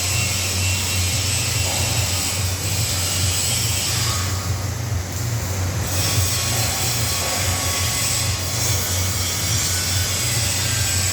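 Steady, loud noise of workshop machinery running: a low pulsing hum with a hiss over it that eases briefly about halfway through.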